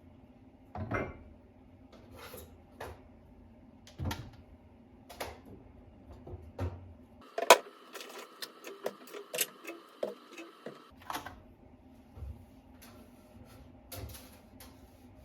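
Light knocks and clicks of household objects being handled, spaced about a second apart. In the middle they come quickly for a few seconds over a faint steady tone.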